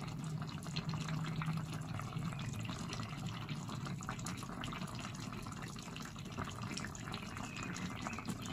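Tomato sauce with sausages and eggs simmering in a frying pan: a steady bubbling full of small, quick pops.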